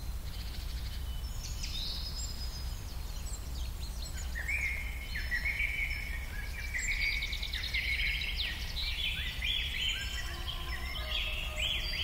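Several small birds singing and chirping over a steady low outdoor rumble, the song growing busier and denser from about four seconds in.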